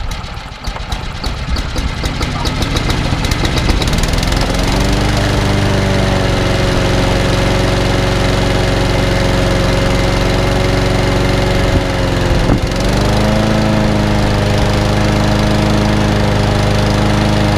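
Honda HR21 lawnmower's single-cylinder four-stroke engine just after a cold start with the choke on: it fires unevenly for the first few seconds, then settles into a steady run. A little past the middle the engine note dips briefly and shifts, then holds steady again.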